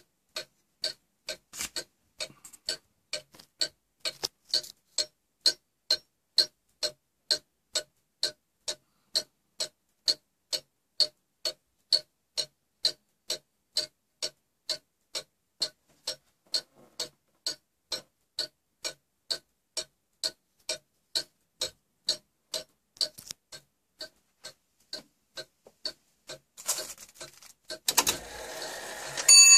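Fusee bracket clock movement ticking steadily, about two ticks a second, from its long pendulum escapement. Near the end the pull-repeat cord rustles and the hour bell starts to ring loudly.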